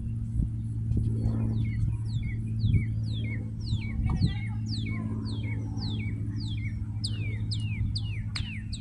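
A songbird singing a repeated series of down-slurred whistled notes, about two a second, growing louder toward the end, over a steady low hum. A few scattered thumps sound now and then.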